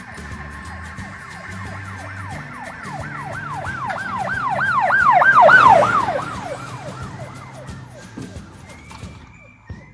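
Emergency-vehicle siren in a fast yelp, about three rises and falls a second, swelling to its loudest about five and a half seconds in and then fading away as if passing by, over background music.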